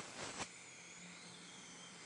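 A couple of sharp clicks in the first half second as small metal dental instrument parts are fitted together by gloved hands, then a faint steady hiss with a low hum.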